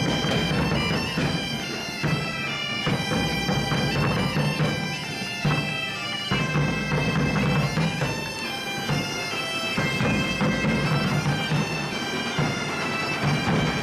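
Several Portuguese bagpipes (gaitas de foles) playing a tune together, with drums beating along.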